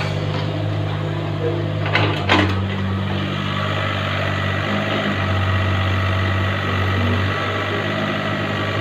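Mini excavator's diesel engine running steadily as the machine swings. Two sharp knocks about two seconds in.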